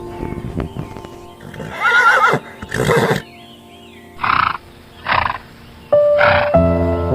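Horse whinnying: a wavering, quavering call about two seconds in, followed by several short breathy bursts, over background music.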